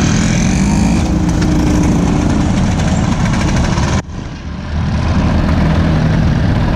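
Several classic motor scooters riding slowly past at close range, engines running. The sound drops away suddenly about four seconds in and picks up again a moment later as more scooters pass.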